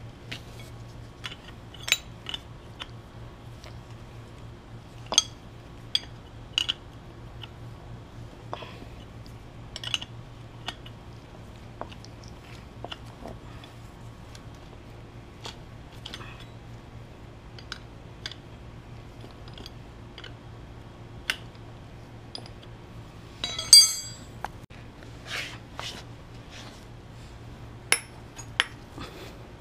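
Scattered metallic clicks and clinks of a hand wrench turning a pulley installer tool, pressing the pulley onto a power steering pump shaft, with one louder ringing clink about three quarters of the way through.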